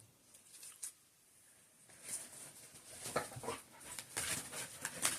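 A pet dog getting into things: a run of faint, irregular scratches and clicks from about two seconds in.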